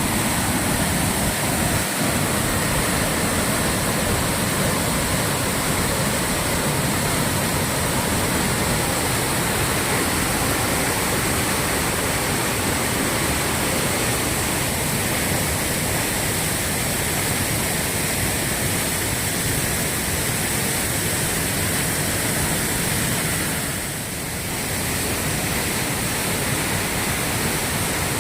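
Waterfall's water falling steadily in a continuous loud rushing noise. It dips briefly in level near the end.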